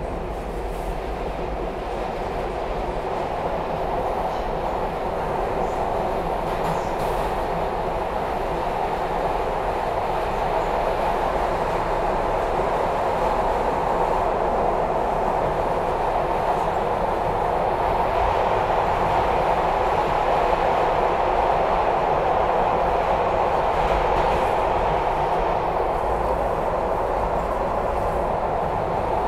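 A SEPTA Broad Street Line subway train heard from inside the car as it runs through the tunnel: a steady rumble of wheels and motors that grows louder over the first half and then holds.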